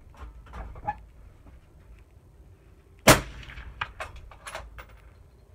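A single suppressed rifle shot about three seconds in: a 22-250 bolt-action rifle fired through a Thunder Beast Ultra 9-inch 30-calibre suppressor, a sharp report that dies away quickly. A few light clicks follow.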